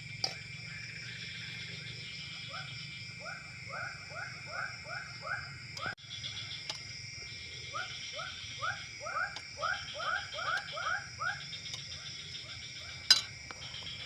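Frogs calling in two runs of short rising croaks, about three a second, over a steady high drone of insects. A sharp click near the end, the loudest sound.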